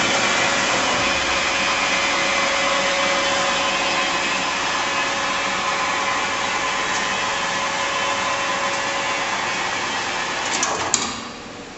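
Bridgeport Romi EZ-Path CNC lathe running with a steady machine whir and hum. Near the end a sharp click sounds and the running noise drops away.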